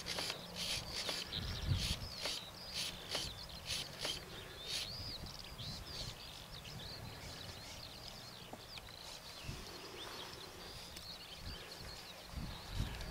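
Songbirds chirping and warbling throughout, many short quick calls. Wind rumbles on the microphone now and then, and close rustling comes in the first few seconds.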